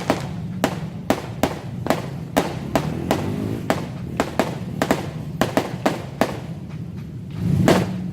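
Fireworks going off in a rapid, irregular string of sharp bangs and crackles, a few a second, over a steady low hum.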